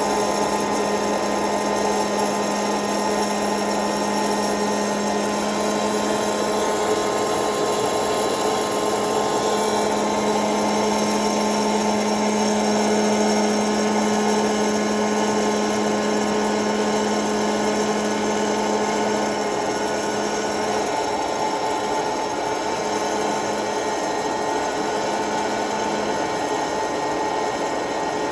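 Hot-air popcorn maker's fan motor running steadily, blowing hot air over the kernels in its chamber. It makes a constant whir with a hum whose lowest tone fades about two-thirds of the way through.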